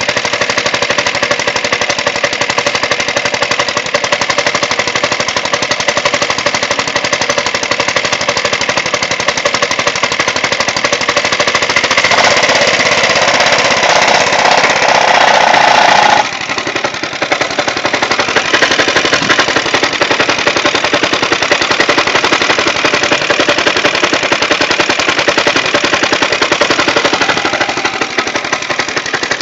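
The 75cc engine of a Qualcast Commodore reel mower running, a fast, steady popping exhaust beat; it has compression again after its valves were lapped and the cylinder deglazed. About 16 seconds in the sound drops a little and changes tone.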